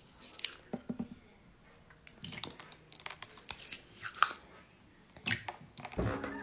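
Metal spoon scooping from a small plastic cup and tapping against plastic drink cups: a run of faint, scattered clicks and scrapes, busier near the end.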